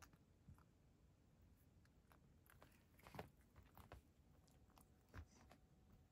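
Faint, scattered crunches of a cat chewing dry kibble, a little louder about three seconds in.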